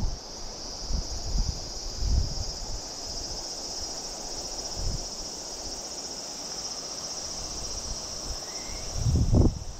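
A steady, high insect chorus of summer crickets or cicadas, with occasional low bumps and rumbles, the loudest near the end.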